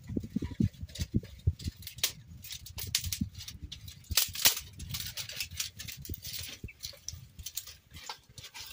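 Dry twigs snapping and cracking by hand as they are broken into kindling for a mud stove: a quick, irregular run of sharp cracks, with the rustle of the brushwood bundle.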